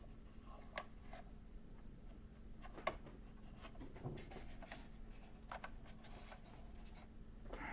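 Faint clicks and rustles of a plastic Star Wars toy ship and its pilot figure being handled, with a sharper click about three seconds in.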